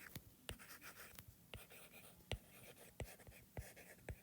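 Faint handwriting: a writing tool scratching in short strokes, with several light taps.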